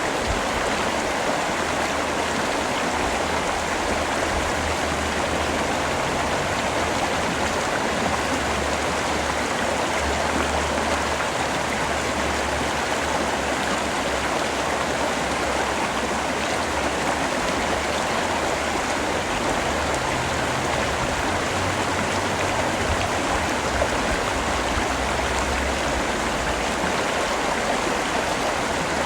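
Steady rain falling, an even, unbroken hiss of rainfall with a faint low rumble underneath.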